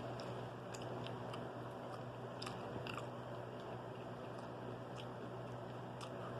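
Close-up chewing of a popcorn shrimp po' boy sandwich, with scattered soft crunches and wet mouth clicks over a steady low hum.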